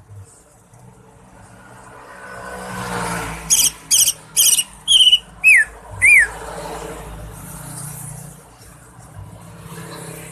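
Greater green leafbird (cucak ijo) giving six loud, sharp calls in quick succession, some as rising-then-falling whistles, while a passing vehicle swells up and rumbles underneath.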